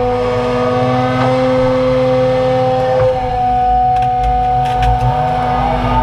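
John Deere 200 excavator's diesel engine running under load with a steady whining tone from the hydraulics as the bucket digs and lifts mud; the pitch shifts slightly about halfway through.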